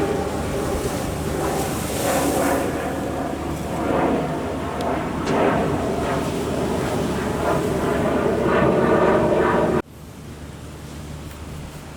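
Strong wind buffeting the microphone over the rush of rough harbour waves, swelling and easing in gusts. About ten seconds in it cuts off abruptly to a much quieter steady low hum.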